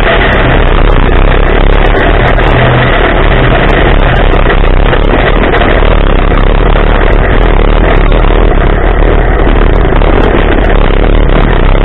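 Polaris RZR side-by-side's engine running hard at racing speed over a dirt track, mixed with constant rattling and wind noise. Loud and distorted, as heard through a camera mounted on the vehicle.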